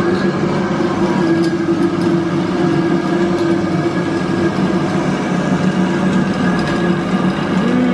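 Electric nut butter mill running steadily as it grinds hazelnuts into butter, its motor giving an even hum.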